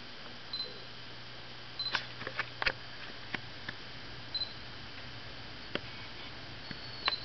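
Scattered small sharp clicks and ticks, bunched together about two seconds in and then single ones later, over a steady low hum, with a few very brief faint high chirps.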